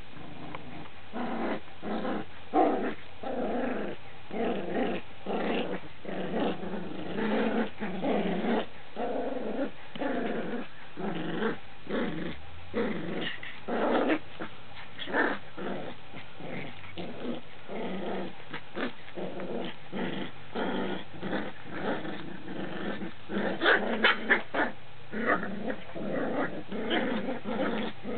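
Cocker spaniel puppies growling in play as they tug at a leash, short growls coming one after another. The growls get louder for a few seconds near the end.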